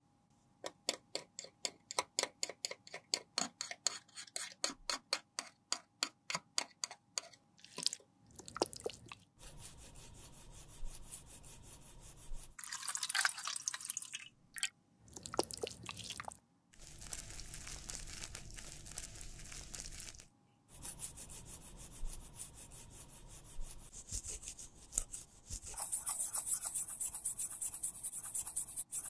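Quick rubbing strokes, about four a second, as a metal makeup pan is wiped clean with a tissue and makeup remover. These give way to running water splashing in a stainless-steel sink as the pan is rinsed, stopping and starting several times.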